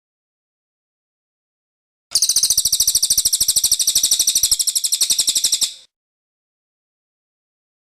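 A cililin songbird's fast, even, high-pitched trill lasting about three and a half seconds, starting about two seconds in after a silent gap.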